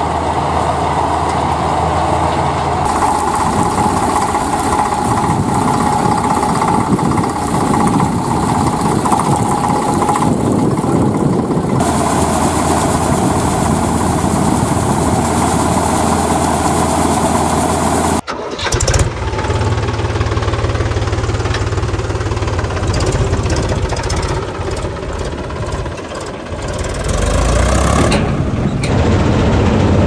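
Farm machinery running steadily during a wheat harvest: an Eicher 485 tractor's diesel engine and a combine harvester at work, including its grain unloading auger and cutting header. The sound changes abruptly several times, with one sharp break about 18 seconds in.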